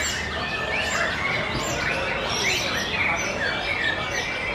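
White-rumped shamas (murai batu) singing: a dense, unbroken run of overlapping whistles, chirps and quick rising and falling notes from several birds at once.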